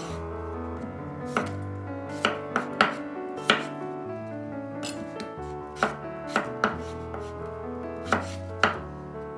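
A kitchen knife cutting peeled raw potatoes on a wooden cutting board, the blade knocking sharply on the board about ten times at an uneven pace. Soft background music runs underneath.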